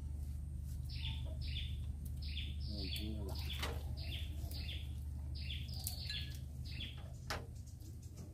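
A small bird chirping repeatedly, quick high chirps that each drop in pitch, often in pairs, over a steady low hum.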